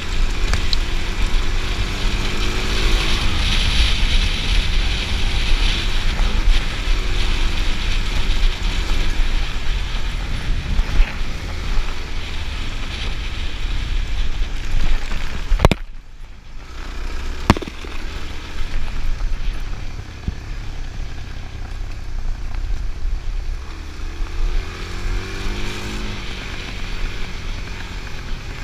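Suzuki DRZ 400's single-cylinder four-stroke engine running under way on a loose stony track, its note rising and falling with the throttle, over a heavy rumble of wind on the microphone. Two sharp clicks come about halfway through, and after them the whole sound is noticeably quieter.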